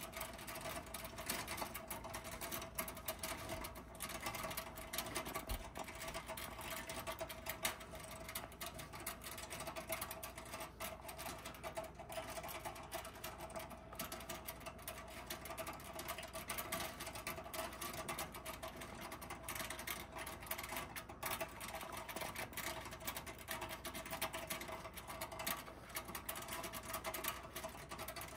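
Tucher & Walther T 731 tin-toy shipyard's mechanism running, its linkages and moving worker figures clattering in a fast, steady rattle over a steady whirring note. The drive pulley is being turned by hand.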